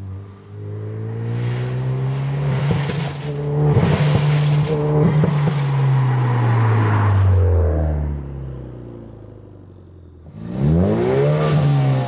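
Ford Focus RS Mk3's turbocharged 2.3-litre four-cylinder accelerating past, its note rising, then falling and fading away about eight seconds in, with a few short bursts of noise near four and five seconds in. About ten seconds in the engine is heard again, revving up and down in quick blips.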